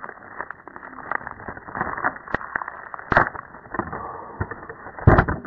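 A plastic DVD case being handled, with irregular crackling and clicking. Two sharper, louder clicks come a little past three seconds and just after five seconds.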